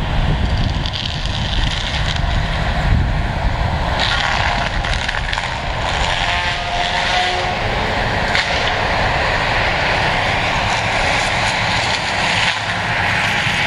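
Tracked excavator's diesel engine running hard while its hydraulic stump grinder head chews into standing trees. A harsh, hissing grind of wood being shredded joins the steady engine drone about four seconds in and carries on.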